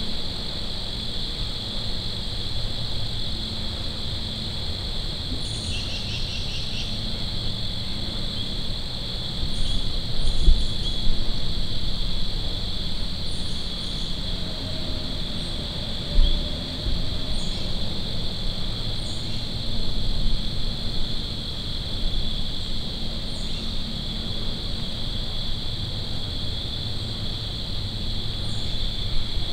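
Steady chorus of crickets trilling, with a few faint high chirps and a low rumble that bumps up briefly about ten and sixteen seconds in.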